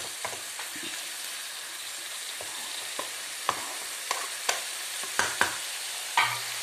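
Chicken pieces frying on high flame in a pan of chilli paste fried in oil. A steady sizzle runs throughout, with scattered sharp pops that come more often in the second half; the loudest comes near the end.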